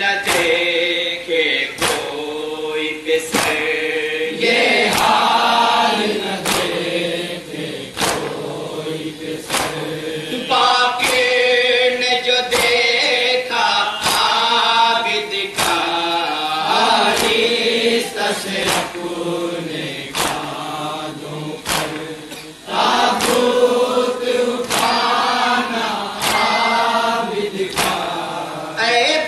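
Men's voices chanting a nauha, the Shia lament for the Karbala martyrs, in a slow sung recitation. Under it run steady sharp slaps, a little faster than one a second: matam, hands beating on chests in time with the lament.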